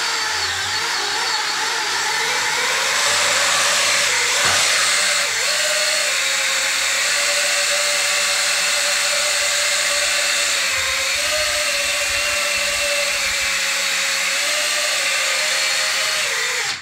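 X-wing-shaped FPV quadcopter's four motors and propellers running as it lifts off and flies indoors: a loud, steady whine whose pitch wavers up and down with the throttle. Its flight-controller PID gains are turned far down to keep a too-flexible frame from vibrating.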